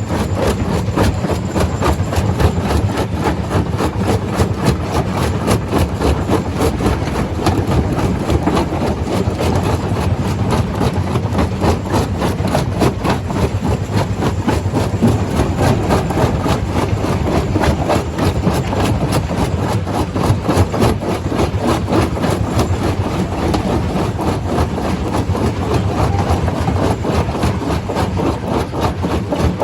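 Stone crusher running steadily: a loud, continuous rattle and clatter of rock being crushed over a low engine drone.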